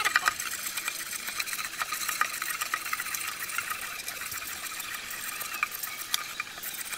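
Knife cutting into a bamboo tube, a dense run of small crackling clicks as the fibres split, over a steady hiss of running water.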